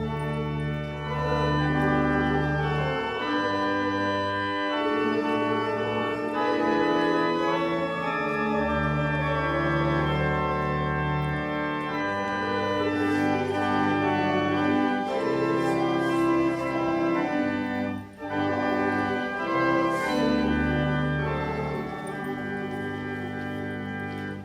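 Church organ playing a hymn in held chords over a moving bass line, with a brief break between phrases about three quarters through and a final cutoff at the end.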